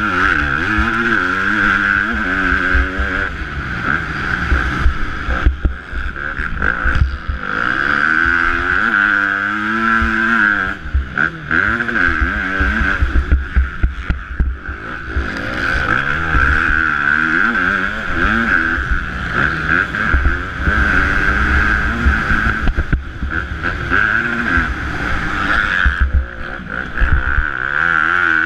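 KTM 250 four-stroke motocross bike engine revving up and down again and again as the rider works the throttle and gears on the track. A steady high hiss runs under the engine throughout.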